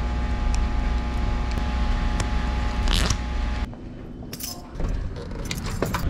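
Steady low hum of a building's air handling, with faint steady tones, a few clicks and a brief whoosh about three seconds in. It then drops suddenly to quieter surroundings with short clicks and scrapes of walking.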